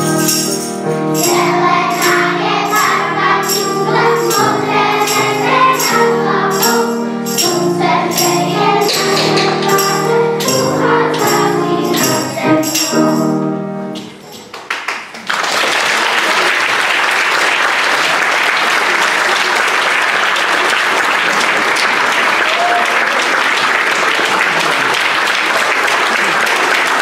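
A group of singers performing a song over accompaniment, with a steady percussive beat about twice a second, possibly a tambourine. The song ends about halfway through, and the audience applauds for the rest.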